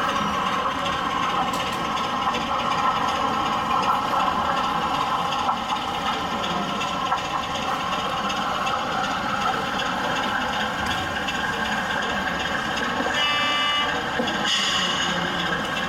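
Model diesel locomotive engine sound from a sound-fitted model train running steadily on the layout. A brief high tone with overtones, like a horn, sounds about thirteen seconds in.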